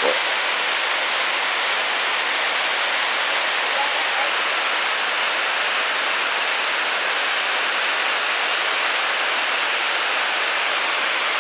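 Waterfall cascading down a steep rock face: a steady, even rush of falling water.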